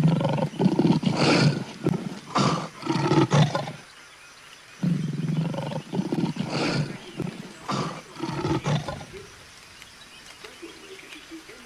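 Two long, loud, lion-like roars, each lasting about four seconds, the second starting about five seconds in.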